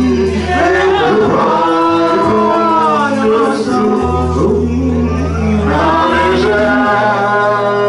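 A man singing a gospel worship song into a microphone, with long held notes over sustained keyboard chords whose low notes change every two or three seconds.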